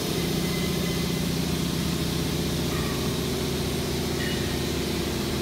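Automatic longitudinal seam butt welding machine welding a steel sheet, giving a steady hum with a hiss over it.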